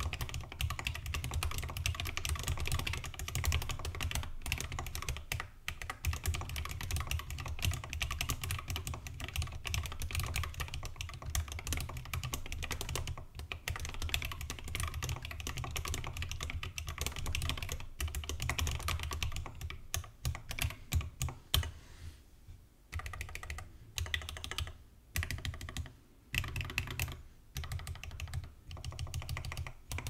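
Fast, continuous typing on a mechanical keyboard with Gateron Black Ink V2 linear switches, SA-profile keycaps and an acrylic case. About two-thirds of the way in, the typing breaks into short bursts with brief pauses.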